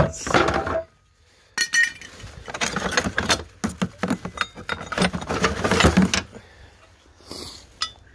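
Old rusty iron hand tools clinking and clanking against each other as they are rummaged through and lifted out of a plastic crate: a busy run of sharp metal knocks and rattles, with a short lull about a second in and again near the end.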